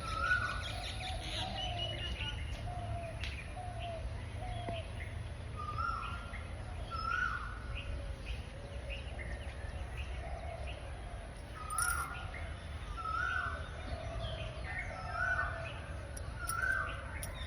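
Asian koel calling: a short rising note repeated every second or two, with runs of lower, shorter bird notes in between. A steady low rumble lies under it.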